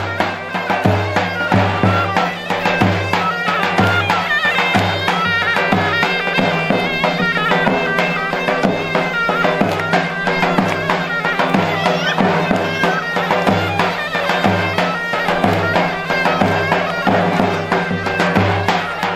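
Loud Turkish folk music from a shrill reed wind instrument, playing a quick ornamented melody over a steady drone, with a regular low drum beat underneath.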